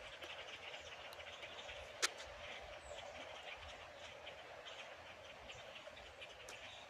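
Blackbirds calling: a faint, steady chorus of many overlapping chirps and chatter, with a single sharp click about two seconds in.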